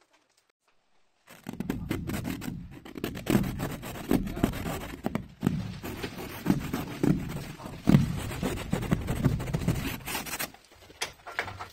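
A fingertip scraping and rubbing thick frost off the inside of a frozen window pane, in many short, irregular strokes.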